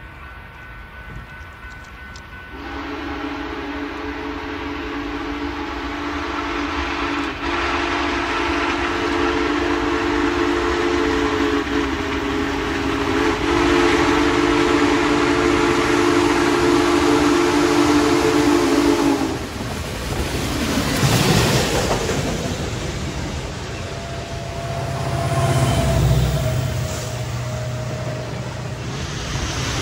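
Union Pacific Big Boy 4014's steam whistle sounding one long, deep chord of several notes for about seventeen seconds, with a few short breaks in it. After it cuts off, a loud rushing rumble with a low drone follows.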